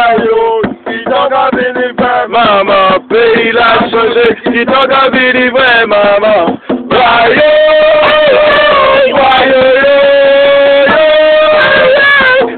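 Gwo ka music: voices singing a chant over hand drums. The singing is choppy at first, then settles into long held notes about seven seconds in.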